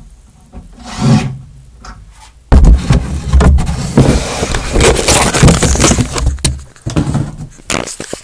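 Porter-Cable cordless impact driver hammering a thick 4-inch lag bolt into a 2x4 for about four seconds, starting from about two and a half seconds in, as the bolt is started in the wood. A short brief burst comes before it, and a few knocks near the end.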